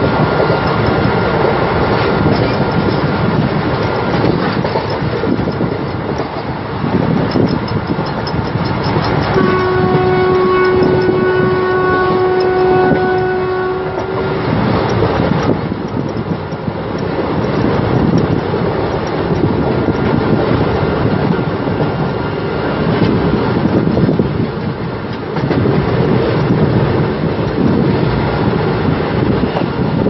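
Passenger coach running fast, heard from an open door: a steady rumble of wheels on the track. About a third of the way in, the hauling WAM-4 electric locomotive's horn sounds one long steady note for about five seconds.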